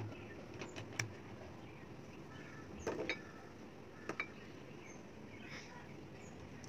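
Faint handling sounds from kitchen utensils: a few small clicks and light taps about a second in, around three seconds and around four seconds, over a low steady background.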